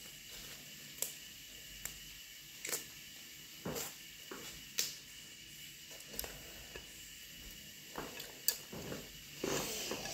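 Scattered sharp clicks and small knocks, irregular, about one a second, over a faint steady hiss.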